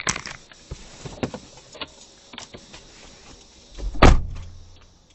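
Scattered clicks and knocks, then one heavy thump about four seconds in, followed by a short low rumble.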